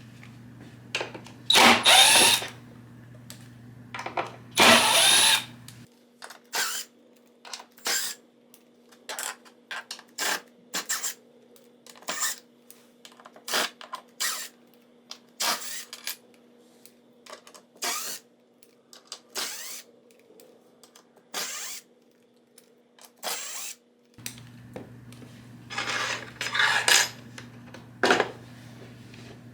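Drill-driver running in short bursts, backing screws out of cabinet hinges and hinge plates. There are two runs of about a second each near the start and more near the end, with a string of short clicks and knocks of screws and metal hardware being handled in between.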